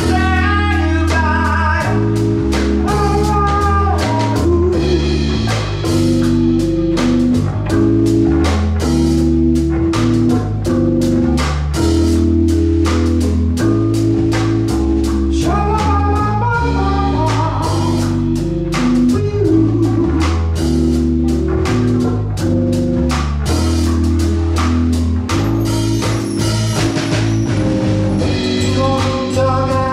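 Live band playing a song on keyboard, electric bass, congas and drum kit, with a man singing in places.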